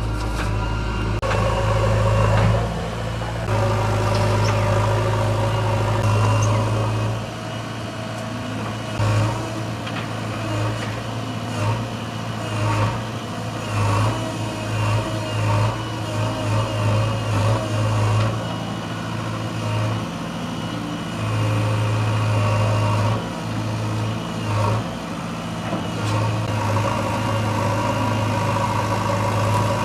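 JCB digger's diesel engine running while working, its pitch and loudness rising and falling again and again as the load changes.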